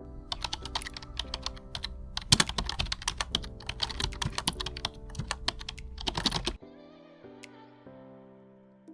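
Rapid, irregular clicking over soft background music. The clicking stops about six and a half seconds in, leaving only the music.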